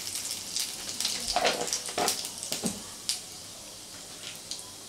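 Whole cumin seeds sizzling and crackling in hot mustard oil, with scattered sharp pops that thin out after about three seconds.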